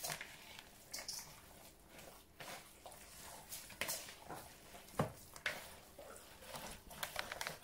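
Hands squishing and kneading raw minced meat mixed with egg and onions in a plastic bowl: soft, irregular wet squelches.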